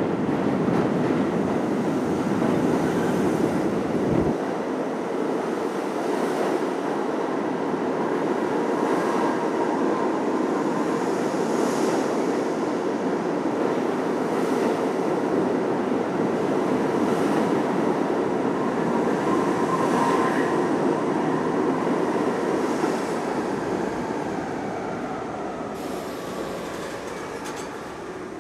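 R32 subway train rumbling into an underground station and along the platform, its wheels clicking over rail joints every two to three seconds. The rumble fades near the end as the train slows to a stop.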